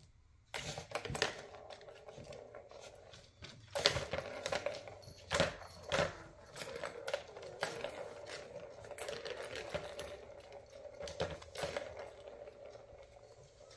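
Plastic balls rolling and rattling round the tracks of a tiered cat ball-track tower toy as a kitten bats at them, with many irregular clicks and clacks over a steady rolling hum, starting about half a second in.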